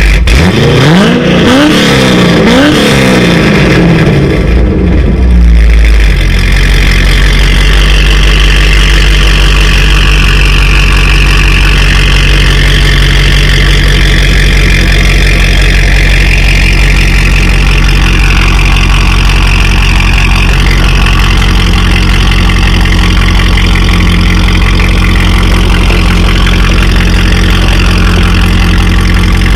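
C6 Corvette's LS2 V8 running through Corsa long-tube headers, X-pipe and Xtreme mufflers. It is blipped a few times in the first few seconds, then settles into a loud, steady idle.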